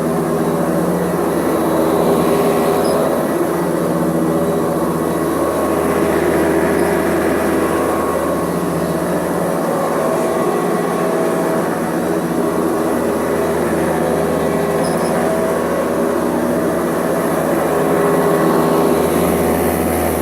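Hoover Custom Convertible U4121 upright vacuum cleaner running steadily on a shaggy rug, its brush agitator stuck at the shag height setting. The motor's steady hum rises and falls slightly in level.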